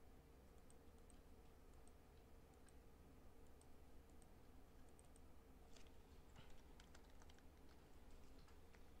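Faint clicks of a computer keyboard and mouse, with a quick run of keystrokes from about six to seven and a half seconds in, over a faint steady hum.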